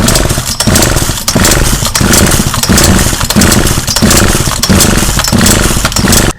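Partner P340S two-stroke chainsaw engine running unevenly, surging and sagging about one and a half times a second, then stopping abruptly. The engine is flooded with excess fuel, with gasoline leaking out of the muffler.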